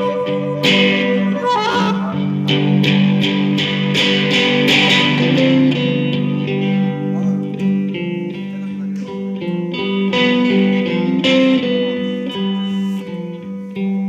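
Live blues on electric guitar through an amplifier, picking a melodic line over sustained notes. A harmonica is heard briefly at the start before the guitar carries on alone.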